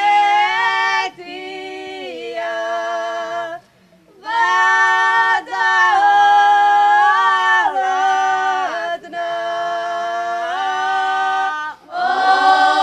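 Traditional Croatian Posavina folk singing by a group of women's voices, a cappella and in unison. Long held notes slide from pitch to pitch, in phrases broken by short breaths, with a longer pause about four seconds in.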